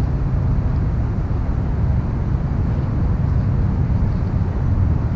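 A steady, low outdoor rumble with no distinct events.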